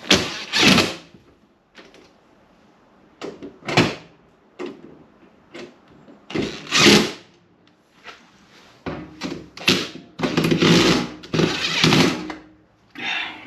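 Cordless drill-driver running screws into the steel cover of an electrical breaker panel in a series of short bursts, with knocks of the metal cover against the panel box.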